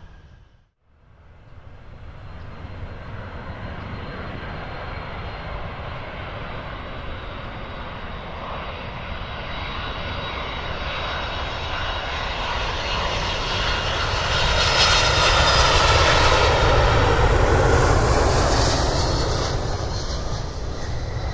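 Qantas Airbus A380's four Rolls-Royce Trent 900 jet engines during landing. After a brief dropout about a second in, the noise builds steadily, is loudest about fifteen to eighteen seconds in, then eases off.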